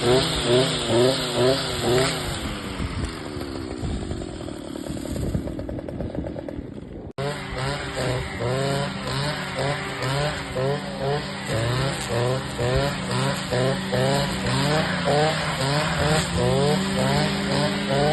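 Brush cutter engine running in rhythmic surges, about two or three a second. It dies down and drops in pitch for a few seconds, cuts out abruptly, then surges again.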